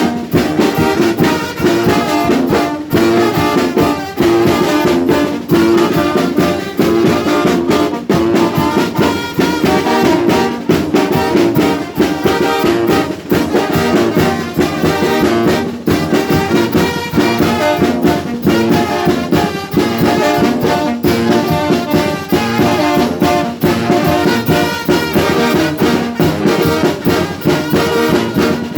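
Mexican brass banda playing a tune, trumpets and trombones carrying the melody over a steady drum beat.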